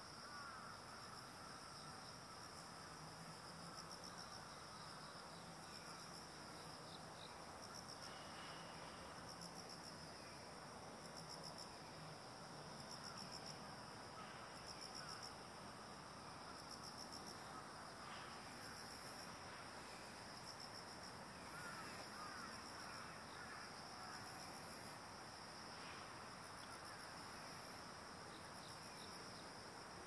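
Faint, steady chorus of insects: a high, pulsing trill.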